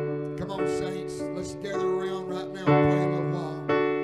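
Slow background music of sustained chords on a keyboard, with new chords struck about three-quarters of the way in and again near the end.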